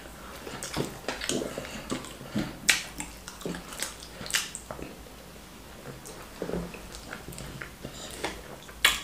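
Close-up eating of wheat fufu with slimy ogbono soup: irregular wet mouth smacks and clicks with chewing in between, the sharpest smacks a little under three seconds in, around the middle, and just before the end.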